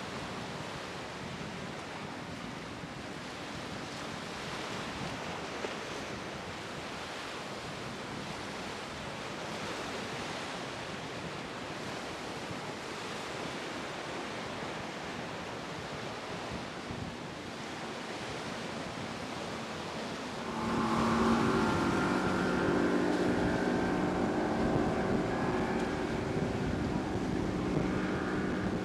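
Wind and surf noise on the microphone. About two-thirds of the way in, a boat's outboard engine comes in louder and runs with a steady drone over the waves.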